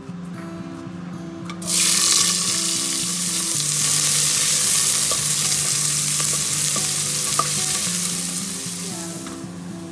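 Chopped onion and green chillies hitting hot oil in a pressure cooker pot, sizzling loudly from about two seconds in as a spatula stirs them, frying until translucent. The sizzle eases off near the end.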